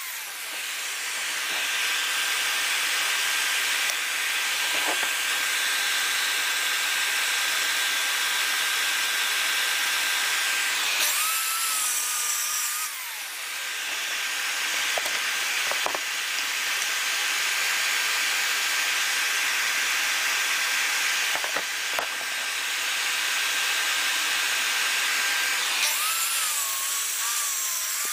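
Plunge-cut track saw running along its guide rail through birch plywood: a steady hiss of sawing with a high, even motor whine. Twice, about 11 seconds in and again near the end, the sound drops and the pitch wavers before the steady cutting sound returns.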